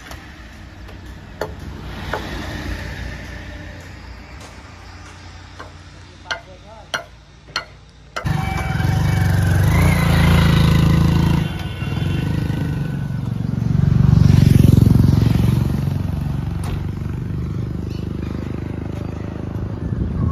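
Hyundai 80-7 crawler excavator's diesel engine running. It comes in loud and abruptly about eight seconds in, swells again around two-thirds of the way through, then holds steady. Before it there is a quieter low hum with a few sharp clicks.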